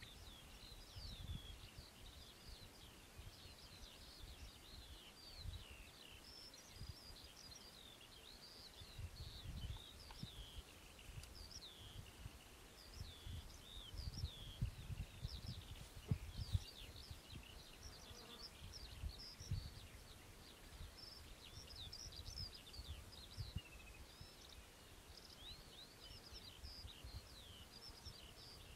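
Birds singing continuously over open farmland: many quick, high chirps and trills, over an irregular low rumbling that comes in gusts and is strongest a little past the middle.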